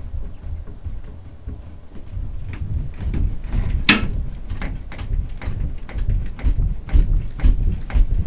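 Knocks, clicks and rustling from a person handling gear close to the microphone, with one sharp knock about four seconds in and a run of smaller clicks after it, over a low rumble.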